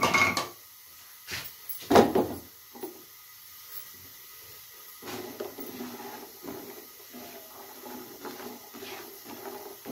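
Two sharp knocks of kitchen utensils against a nonstick frying pan of jaggery lumps, one at the start and one about two seconds in. From about five seconds in there is a steadier wet sound of water in the pan and a silicone spatula stirring the jaggery, the start of a jaggery syrup.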